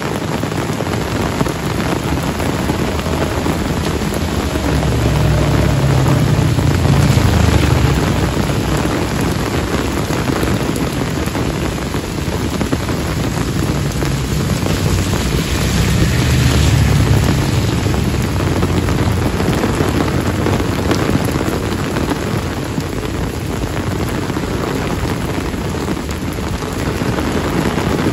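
Heavy tropical rain pouring steadily onto a paved lane and trees. Twice a low rumble swells and fades under it, a few seconds each.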